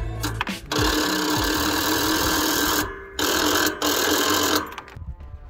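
Riding lawn mower's electric starter cranking the engine in three goes: a long one of about two seconds, then two short ones, each cut off abruptly.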